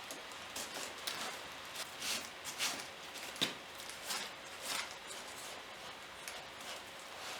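Leatherworking handling sounds: a run of light, irregular clicks and rustles from tools and leather, the sharpest click about three and a half seconds in, with quieter handling near the end.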